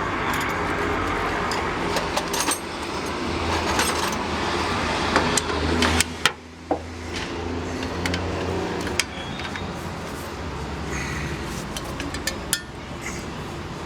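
Scattered metal clicks and clinks of a screwdriver working against drum-brake parts as a part is pried and snapped into place, over a steady low hum.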